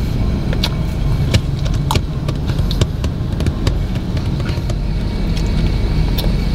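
Car engine idling, a steady low rumble heard inside the cabin, with scattered light clicks of plastic spoons against a plastic tray.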